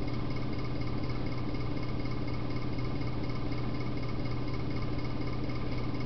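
Steady low hum with an even hiss and no other sound: background room tone and recording noise.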